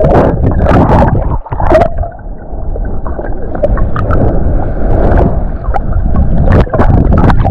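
River water heard with the microphone submerged: splashing and bubbling for the first two seconds or so, then a muffled underwater rushing with scattered bubble clicks.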